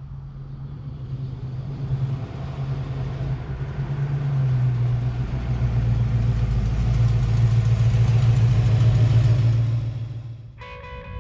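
1970 AMC Javelin's 360 V8 engine running as the car drives up, growing louder as it approaches; its low note drops a little in pitch about four and a half seconds in and holds steady, then fades near the end as music comes in.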